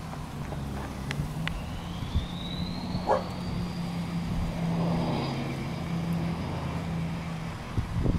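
Steady low hum of a vehicle engine with wind on the microphone. A dog barks once about three seconds in, and a faint high whine rises and holds from about two seconds in.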